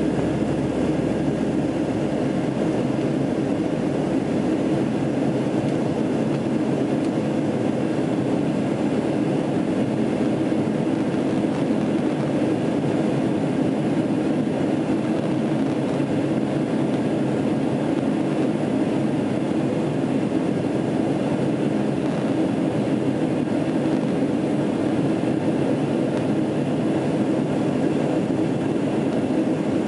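Steady drone of jet engines and rushing air inside an airliner cabin, heard from a window seat beside the wing during the climb after takeoff. The level holds even, with no changes in pitch.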